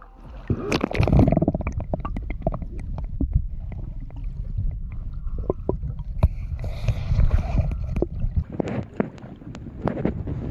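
Splashing as the camera goes under about half a second in, then muffled low rumbling and gurgling of lake water on the submerged microphone, broken by frequent knocks and clicks. There are more splashy knocks near the end as it comes back out.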